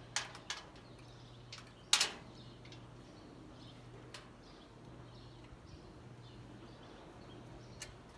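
A few sharp clicks and knocks of tools and hardware being handled while fitting a door closer, the loudest about two seconds in, over a steady low hum.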